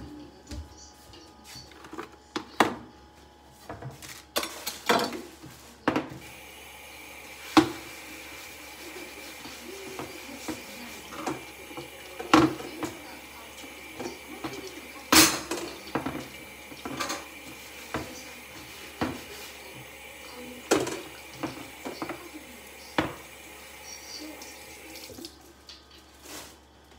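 Kitchen tap running into a sink, starting a few seconds in and shutting off near the end, with scattered knocks and clatter of dishes and utensils being handled.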